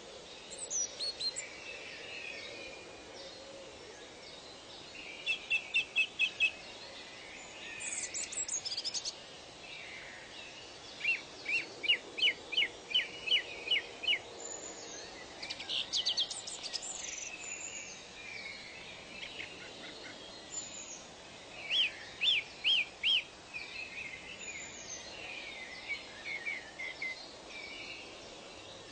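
Several songbirds singing: short runs of quick, evenly repeated chirps every few seconds, with thin, very high notes mixed in, over a faint steady background hiss.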